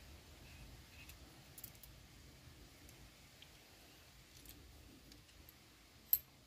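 Faint metallic clicks and ticks from a hand brake-line flaring tool and its steel die block being handled, with one sharp click about six seconds in.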